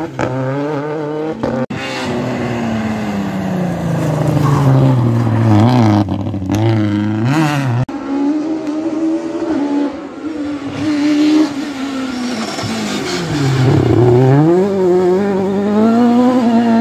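Rally car engines taking a tight hairpin, the engine note falling as they slow into the bend and rising again as they accelerate out, several times over. The sound breaks off abruptly twice, about two and eight seconds in, where one pass gives way to another.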